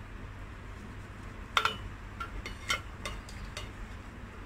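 A wooden spatula stirring thick curry in a steel pressure cooker, knocking against the pot about half a dozen times. The loudest knock comes about one and a half seconds in and rings briefly.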